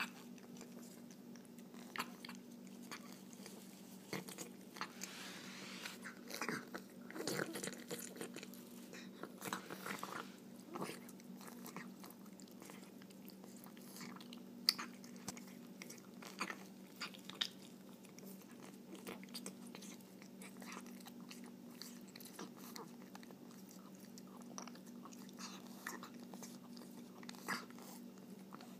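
A long-haired cat eating chunky wet cat food from a plate, with irregular wet smacks and clicks of chewing and licking. A steady low hum runs underneath.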